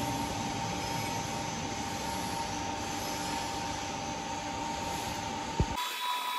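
Steady running noise of workshop machinery with a constant whine. A sharp click comes near the end, and then the sound changes abruptly to a quieter background with thin high whines.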